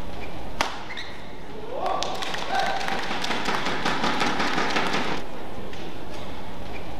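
Badminton court sounds in a large hall: one sharp racket strike on the shuttlecock about half a second in, a short rising cry, then about three seconds of scattered clapping and taps that stop abruptly.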